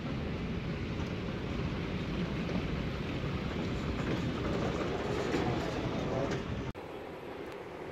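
Steady rumble and clatter of a moving walkway (travelator) running, mixed with the general noise of a busy airport terminal. It cuts off abruptly near the end to quieter room noise.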